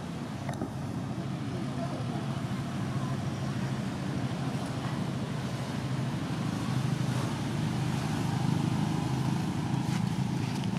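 Steady low rumbling background noise, with a few faint clicks near the end.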